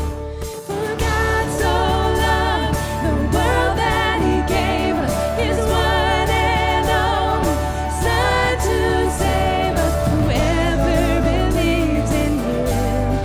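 Live worship band playing a song with vocals and a steady beat, after a brief pause just after the start.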